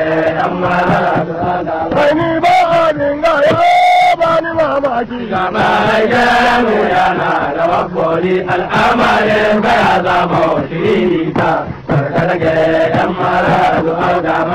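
Hausa praise song: male voices chanting and singing in chorus, with frequent sharp drum strokes.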